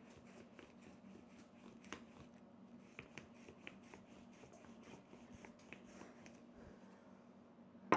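Marble rolling pin with wooden handles rolling out thick, buttery pastry dough on a floured silicone mat: faint, scattered clicks and soft rubbing as the handles turn and the pin presses the dough. One sharper knock near the end.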